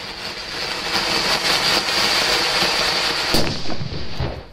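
Anar (ground fountain firework) spraying sparks with a loud, steady hiss thick with crackling. About three and a half seconds in comes one sharp bang, the blast it ends with, and then the hiss dies away.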